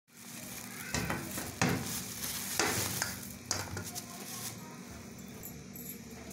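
Kitchen handling noise: several sharp scrapes and knocks in the first few seconds, then a steady hiss.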